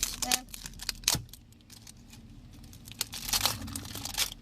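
Packaging being handled: a few sharp clicks and knocks, the loudest about a second in, then a burst of crinkling and rustling near the end.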